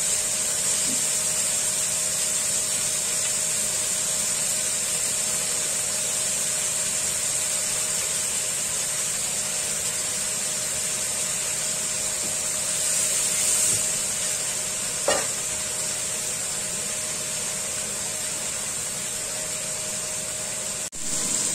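Beef-wrapped enoki mushroom rolls sizzling steadily in oil in a frying pan, over a steady hum. There is a single short click about fifteen seconds in.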